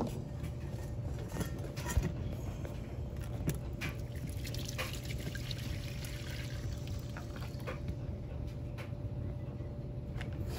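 Gasoline pouring from a string trimmer's fuel tank into a stainless steel bowl, a steady splashing trickle, with a few knocks and clicks from the handling, the sharpest about two seconds in.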